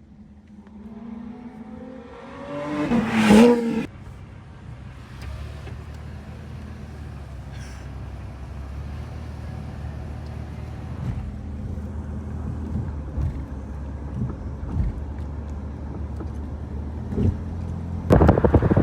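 A motor vehicle's engine revving up, its pitch rising steeply to a peak about three seconds in before cutting off abruptly. A steady low rumble follows, and a loud gust of wind noise hits near the end.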